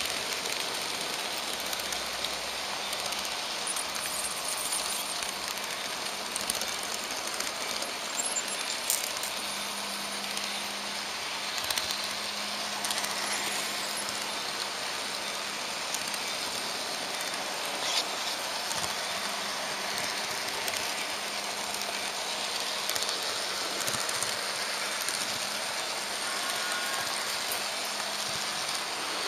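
HO-scale Märklin model train running along the track: a steady rattling hiss of wheels rolling on the rails, scattered with small clicks over joints and points, and a faint steady hum underneath from about ten seconds in.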